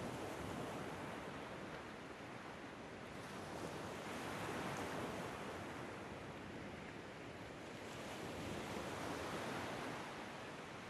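Ocean surf: a steady wash of waves that swells and ebbs slowly, with the louder swells about four to five seconds apart.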